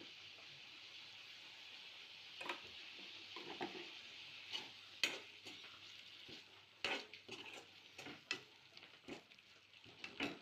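Food sizzling in hot oil in a pan, a steady hiss, with a spatula scraping and clinking against the pan in irregular strokes as it is stirred.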